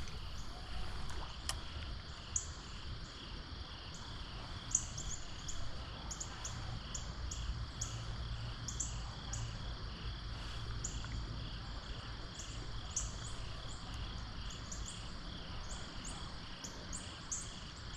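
Insects, likely crickets, chirping in a steady pulsing chorus, with short sharper high chirps scattered throughout, over a steady low rumble.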